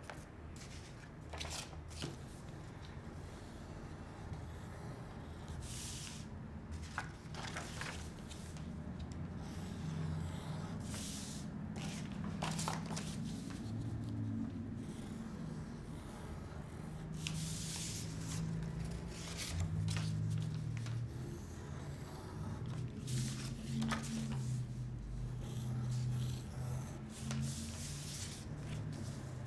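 Pen drawing on folded construction paper and sheets of paper being handled and slid across a table, heard as scattered soft rustles and scratches.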